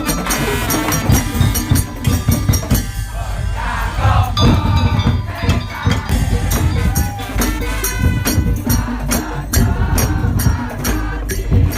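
Madurese ul-daul (tongtong) music: a percussion ensemble keeps a steady, driving beat under a pitched melody line.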